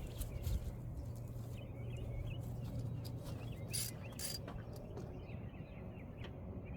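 Hand tools working at the car's battery hold-down: scattered light clicks and two short metallic clinks with a brief ring about four seconds in, over a steady low hum.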